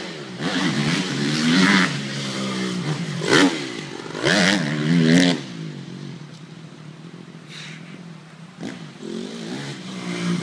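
Motocross dirt bike engine revving up and down under throttle. There are several loud bursts and a quieter lull of a few seconds near the middle.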